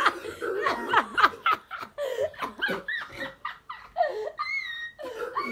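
Young women laughing, with a short high-pitched squeal about four and a half seconds in.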